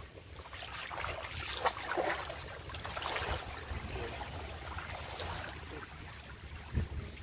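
Wind rumbling on the microphone over water lapping in the shallows, with brief hissy surges a couple of seconds in.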